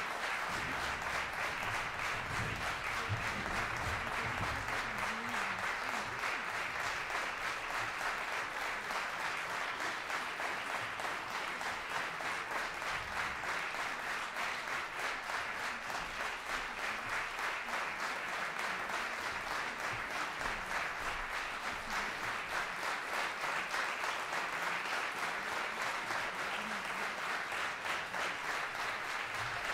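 Audience applauding: many hands clapping together in a steady, sustained ovation.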